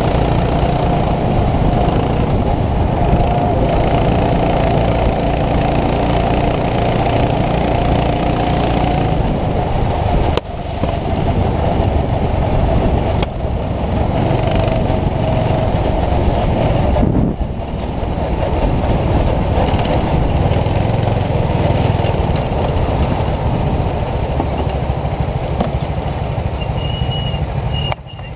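Racing go-kart's engine running hard at speed, with a few brief lifts off the throttle along the lap; it eases off right at the end as the kart slows.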